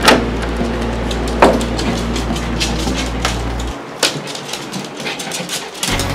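A door being opened and handled: a few sharp knocks and clicks, the loudest right at the start and about a second and a half in, over a steady low hum that drops out for about two seconds near the end.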